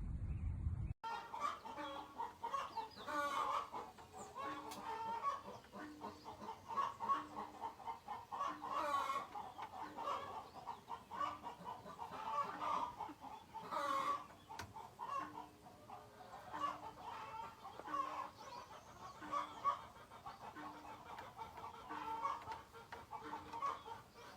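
Chickens clucking and calling, many short irregular clucks overlapping.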